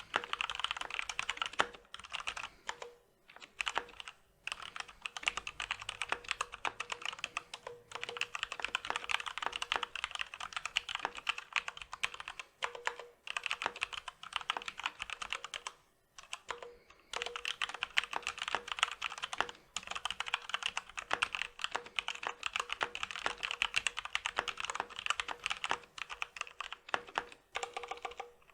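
Fast continuous typing on a Corsair K65 RGB Rapidfire mechanical keyboard with linear Cherry MX Speed Silver switches and stock ABS keycaps: a dense run of keystroke clacks with brief pauses a few seconds in and about halfway through.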